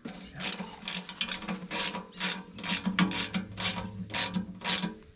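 Ratcheting wrenches clicking in quick repeated strokes, about three a second, as nuts are run down onto the bolts holding the steel legs of a small wood stove.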